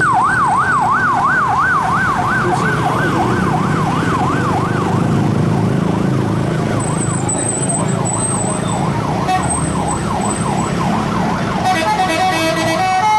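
A bus's 'telolet' musical horn sounding a siren-style yelp, its pitch sweeping up and down about three times a second. The yelp fades and returns more faintly, over a steady low rumble. Near the end it switches to a quick tune of stepped horn notes.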